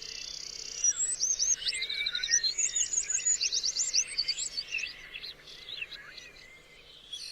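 Songbirds singing: rapid chirps and fast trills of repeated sweeping notes, growing fainter over the last few seconds.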